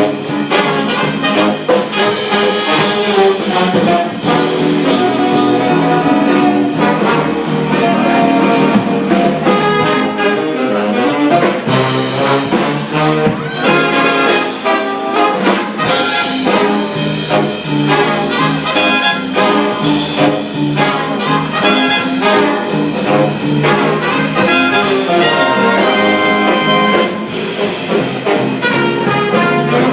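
Big band swing jazz played live, the brass section of trumpets and trombones playing with saxophones over the rhythm section.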